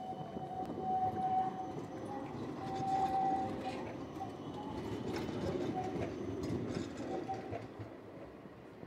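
Trams running through a curved junction: a low rumble of wheels on the rails, with a steady high squeal coming and going. The sound dies away near the end.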